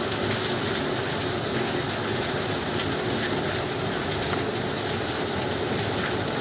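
Steady rushing water noise, even and unbroken throughout.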